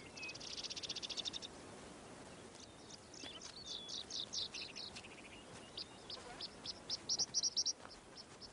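Birds singing: a fast, high trill in the first second or so, then a run of short downward-swept notes, and quicker chirps near the end.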